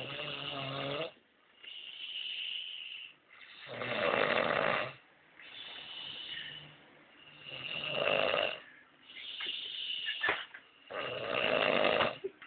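A woman snoring in a slow, even rhythm: four loud snores about four seconds apart, with fainter, higher breathing sounds between them.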